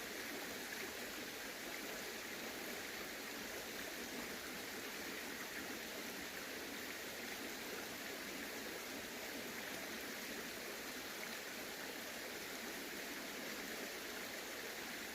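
Steady rushing of a flowing stream, an even wash of water noise with no breaks.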